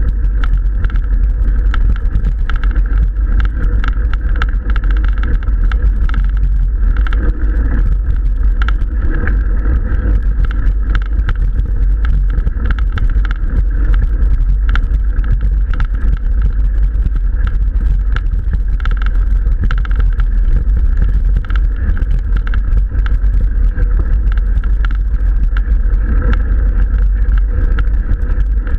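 Steady low rumble of wind buffeting the microphone of a camera mounted on a mountain bike, with the tyres rolling over a gravel dirt track on a climb.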